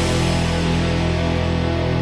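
Rock background music: held, sustained guitar chords with no drum hits.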